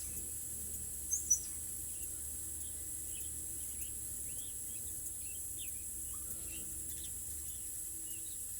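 Outdoor ambience of small birds chirping and twittering over a steady high-pitched insect drone, with two louder, sharp high chirps about a second in.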